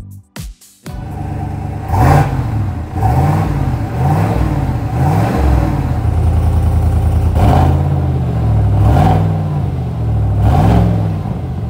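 A GMC Sierra 1500's 5.3-litre V8 idling at the tailpipes and blipped about seven times, each rev rising and falling back to idle; first on the factory exhaust, then, about halfway through, with an AFE Apollo GT Series 3-inch muffler fitted. A short music sting plays in the first second.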